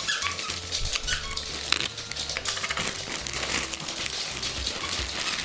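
Crinkle-filled fabric ears of a plush GiGwi dog toy rustling and crinkling as a Pomeranian bites and tugs at the toy.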